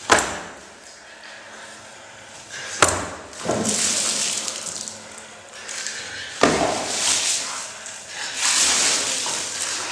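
Wet clay and paint slapped and smeared onto a head and body. There are three sharp wet slaps about three seconds apart, with stretches of hissing, rushing noise after the second and third.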